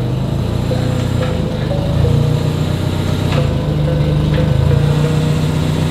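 Forklift engine running while the forklift carries and positions a raised pallet load, its note shifting a couple of times, with background music underneath.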